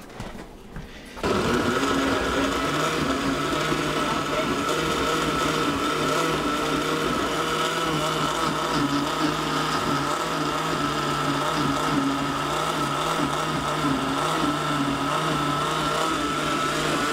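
Proctor Silex countertop blender switched on about a second in and running steadily, pureeing a sauce of tomatoes, onion, garlic and tomato paste.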